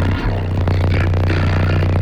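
Car audio subwoofer system playing loud, sustained low bass notes from music, with a brief dropout about a quarter second in.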